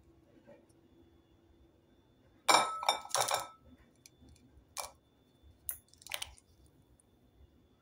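A plastic tofu tray being set down upside down on a ceramic plate, a clatter of several quick knocks about two and a half seconds in, then a few shorter separate taps as a hand presses on the tray.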